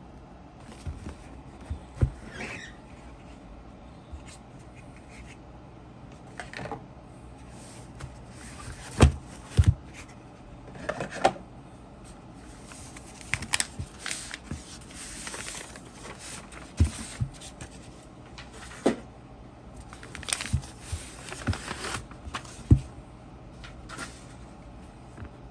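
A cloth-covered cardboard box and the Bible's paper wrapping being handled: the box and book are set down on the desk with several sharp knocks, and the paper rustles and crinkles as it is unwrapped.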